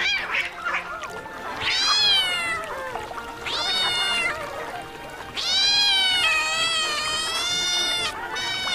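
Domestic cat meowing: a series of drawn-out meows, two short ones followed by one long, wavering meow lasting over two seconds.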